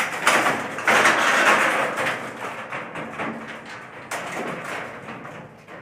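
Steel rolling-shutter slats scraping and rattling against each other and the frame as the rolled-up shutter is handled into place, with small knocks; the scraping is loudest about a second in and then fades.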